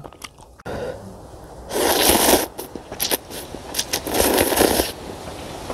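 Slurping noodles from a cup ramen: two short, loud sucking slurps about two seconds apart.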